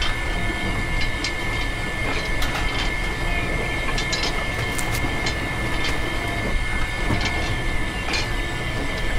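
Small electric motor of a miniature model machine running steadily with a constant high whine, with scattered light clicks and taps.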